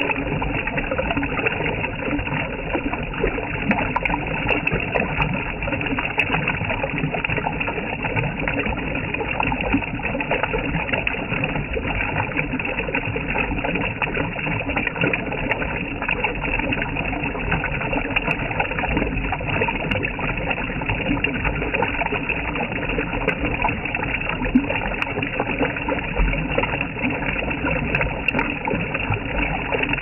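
Shallow stream water flowing over rocks, a steady rushing noise without breaks.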